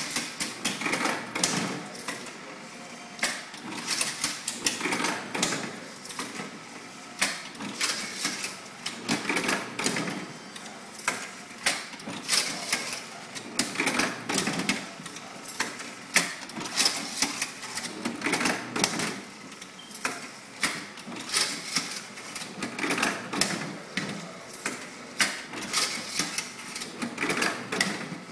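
SPOT Tippy Pack table-top strapping machine cycling again and again as it straps stacks of plastic IC trays with PP strap: a quick burst of mechanical whirring and clicking every couple of seconds, with clatter from the trays being pushed in and out.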